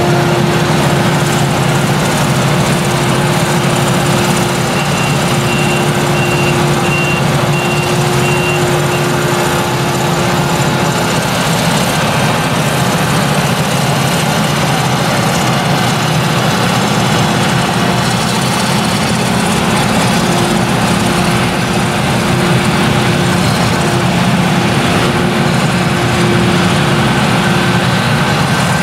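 Claas Jaguar 970 self-propelled forage harvester with its MAN V8 engine running under load while chopping sorghum: a loud, steady heavy drone with a constant whine, joined by the engine of the tractor pulling the trailer alongside. A run of short high beeps sounds from about five to nine seconds in.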